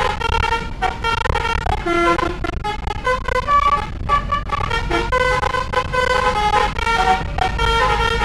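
A bus's multi-tone 'telolet' horn playing a tune of short notes that change pitch several times a second, over the steady low rumble of the bus.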